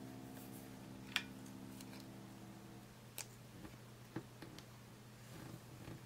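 A few light clicks and taps as plastic watercolour half pans and a pen are handled in a metal palette tin: one sharp click about a second in, then softer ones around three to four and a half seconds. A held chord of background music fades out about three seconds in.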